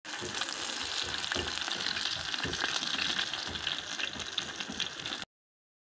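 Masala-coated fish steaks shallow-frying in a little oil on a flat iron tawa: a steady sizzle with small crackling spatters. It cuts off suddenly about five seconds in.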